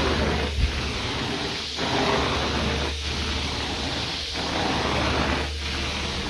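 Carpet-cleaning extraction wand under strong suction, with a steady low hum from the machine behind it. The rushing noise dips briefly in a regular rhythm, about once every second and a quarter, as the wand is stroked across the carpet.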